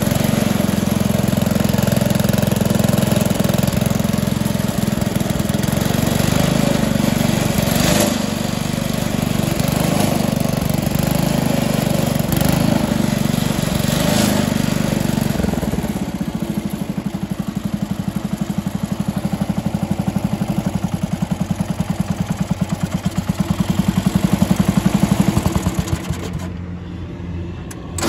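The engine of a Struck compact crawler loader running. It runs steadily at first, then about halfway through it settles into a slower idle with distinct, even firing pulses. Near the end it swells briefly and then goes quieter.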